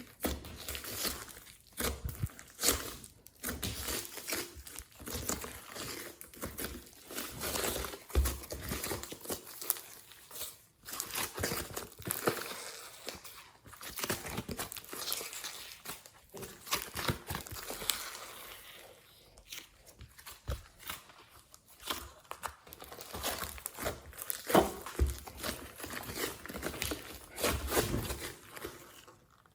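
Glossy slime being kneaded, stretched and squished by hand, giving a continuous run of irregular sticky crackles, clicks and pops.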